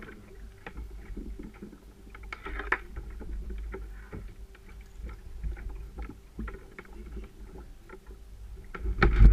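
Sea water slapping and lapping against a paddle ski's hull, with scattered small ticks and knocks and a louder rush near the end.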